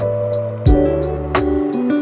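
Background music with a steady beat: held tones over low drum hits and regular high ticks.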